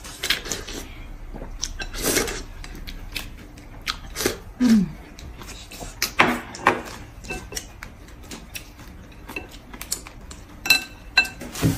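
Eating at a table: scattered clicks of chopsticks against porcelain bowls, with chewing and biting on braised pig's trotter. A short low 'mm'-like sound comes a little under halfway through, and a few light ringing clinks come near the end.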